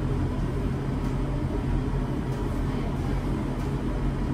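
Room air conditioner running with a steady hum and rush of air.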